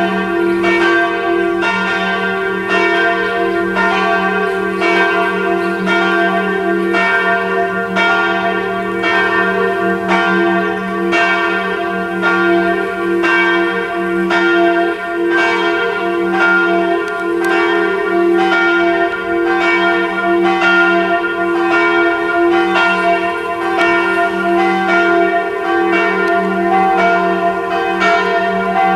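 Church bells ringing a full peal, several swinging bells striking in a steady stream of overlapping strokes with a sustained hum beneath. To the listener on site it sounds like only two of the three bells, the third not being heard.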